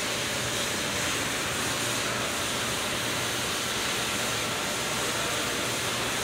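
Steady hum and hiss of running machinery, with no strikes or breaks; a faint steady whine comes in about two seconds in.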